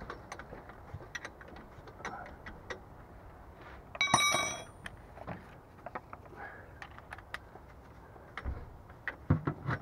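Metal hand tools clicking and clinking while working on the underside of a car, with one loud metallic clang that rings for about half a second about four seconds in, as of a spanner or socket striking metal. A few dull knocks near the end.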